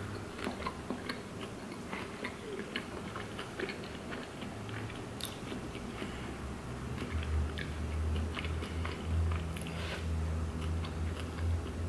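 Close-miked chewing of a large burrito: soft, irregular wet mouth smacks and clicks, with another bite taken near the end. A low steady hum comes in about halfway and grows louder.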